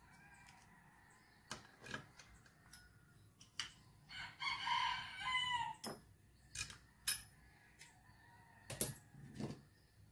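A rooster crows once, a call of about a second and a half starting about four seconds in. Around it come a handful of sharp metallic clicks and clinks, from the valve bucket tappets being lifted out of a motorcycle cylinder head.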